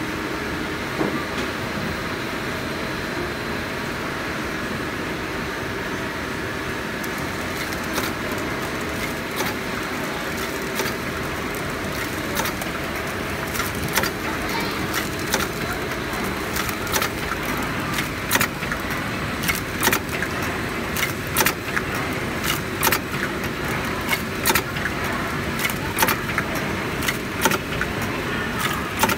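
Servo-driven horizontal flow-wrapping machine running: a steady whir of motors and rollers, with sharp mechanical clicks that start about a quarter of the way in and then repeat roughly one to two times a second.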